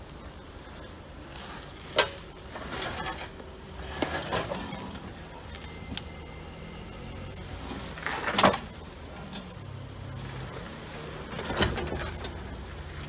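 Jeep Wrangler crawling over rock ledges, its engine running low and steady and rising a little in pitch after about nine seconds. About five sharp knocks and scrapes come through; the loudest is about two-thirds of the way in.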